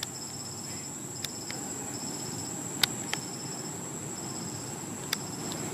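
Insects chirping in short pulsed trills repeated about once a second, over a steady high-pitched whine, with a few sharp clicks scattered through.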